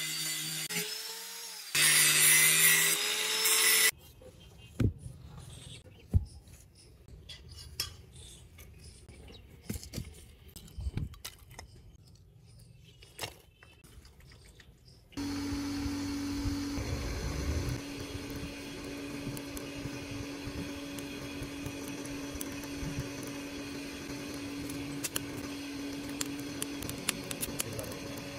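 An angle grinder with a flap disc grinds a steel knife blank, loudest for a couple of seconds before it stops. A quieter stretch of scattered clicks and rustles follows as a charcoal forge fire is lit. About halfway through, a small electric forge blower switches on and runs with a steady hum.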